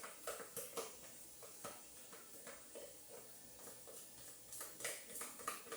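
Spoon or whisk clicking and scraping against a mixing bowl in irregular taps as cornbread batter is stirred together.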